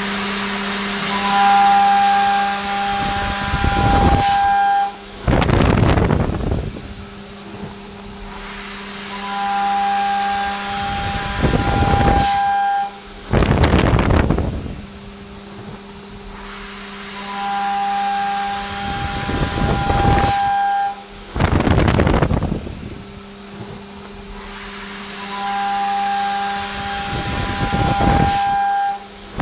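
CNC milling machine side-milling steel with a TiAlN-coated carbide end mill at high speed. Each pass gives a steady high-pitched cutting whine over a constant low hum, followed by a loud hissing rush. The cycle repeats four times, about every eight seconds.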